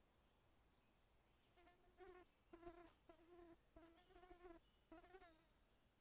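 A flying insect buzzing in five or six short bursts of a fraction of a second each, starting a second and a half in. A faint steady high-pitched tone runs underneath.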